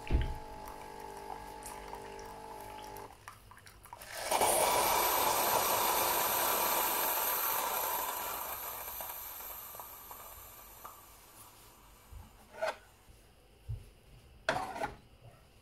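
Bosch Tassimo Vivy 2 capsule coffee machine's pump humming at the end of a hot-water cycle, stopping about three seconds in. About a second later a sudden loud hissing rush starts inside the machine as it purges the remaining water and steam, fading away over about six seconds. Near the end a glass mug clinks a few times as it is picked up off the drip tray.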